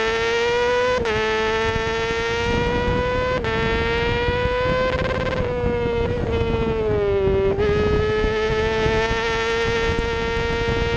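Racing motorcycle engine heard from on board at speed, revving up with two quick dips in pitch about one and three and a half seconds in as it shifts up. Around the middle the pitch falls for about two seconds as the rider eases off, then it pulls steadily again, with wind noise underneath.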